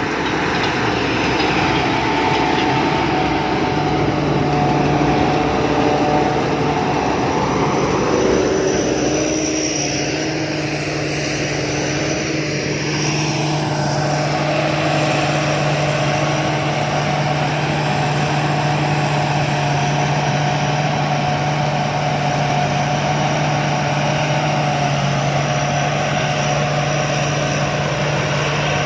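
Sakpattana rice combine harvester running steadily as it harvests, a loud, continuous engine and machinery drone. Its pitch wavers about ten seconds in, then settles again.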